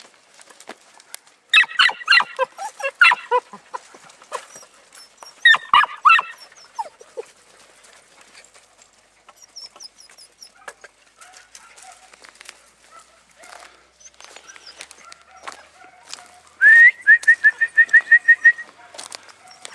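Podenco puppies yapping and yelping in two short bouts. Near the end, a person whistles a quick rising note followed by a rapid run of about ten short, even pips.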